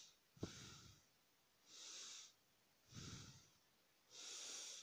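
Faint breathing close to the microphone: four short breaths, about one every second and a bit, alternating in and out.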